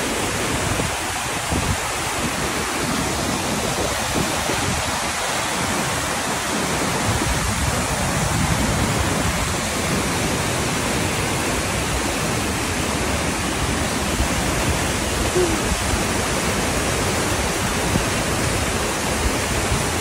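Whitewater rushing and tumbling over rocks in a steep creek cascade: a loud, steady roar of falling water.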